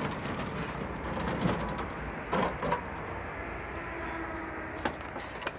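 Busy outdoor traffic noise: a steady rumble of vehicles with a few scattered knocks and clatter.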